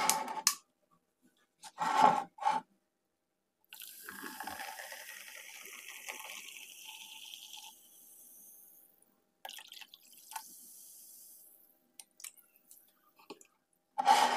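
A drink poured into a cup, a steady pour of about four seconds followed by a second, shorter and fainter pour.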